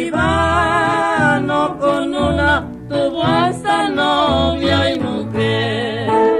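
Norteño music: an accordion plays a wavering melody over a bass line that thumps out a steady beat about once a second.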